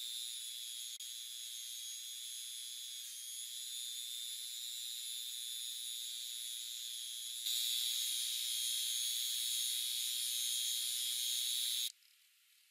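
Handheld rotary tool running a small abrasive wheel against a steel file: a steady high whine that steps louder about seven and a half seconds in and cuts off suddenly near the end.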